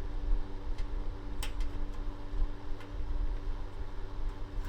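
Fan-forced electric space heater running with a steady hum, with a few light clicks as a plastic carrying handle is pushed into place on top of its metal body.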